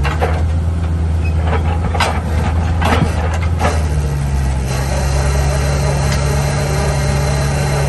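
Diesel engine of a compact track loader running steadily under load as its hydraulic auger drills a footing hole, with several sharp knocks in the first few seconds. About four seconds in, the engine's hum changes pitch and settles into a steady note.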